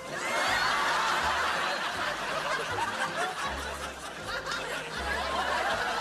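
A group of people laughing and chattering together, many voices overlapping, starting suddenly.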